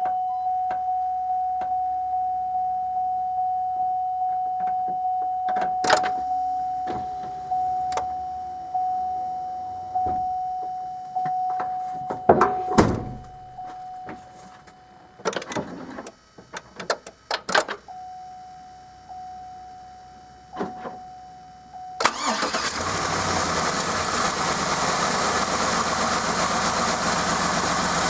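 A vehicle warning chime dings over and over for about the first twenty seconds, with a few clicks and knocks. About three-quarters of the way through, the 2007 GMC Yukon Denali's 6.2-litre V8 starts and runs steadily. This is its first start after the fuel rail and intake manifold were reinstalled.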